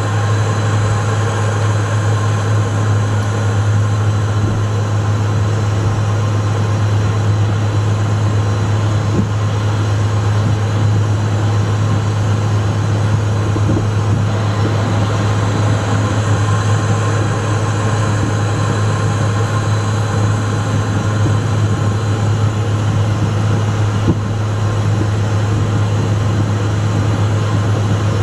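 Steady drone of a Cessna Citation Mustang's twin Pratt & Whitney PW615F turbofans heard inside the cockpit while the jet taxis, with a constant low hum as the loudest part.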